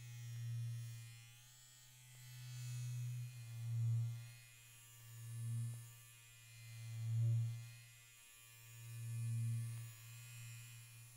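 Hapica electric toothbrushes buzzing close to the microphone. The steady low buzz swells and fades about five times as the brushes are moved toward the mic and away, then breaks into short choppy pulses near the end.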